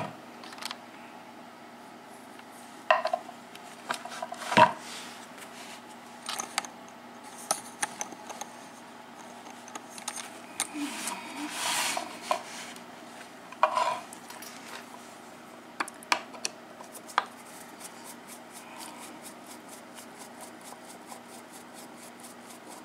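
Small metal clicks and knocks as a brass lock cylinder is handled and set into a holding block, with the loudest knock about four and a half seconds in and a brief scrape around the middle. Toward the end a screwdriver works the screw on the back of the cylinder, making faint, closely spaced ticks.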